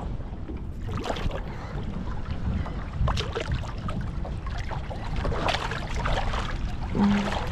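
Wind buffeting the microphone over water sloshing and splashing at the boat's side, with small irregular splashes as a released striped bass swims away.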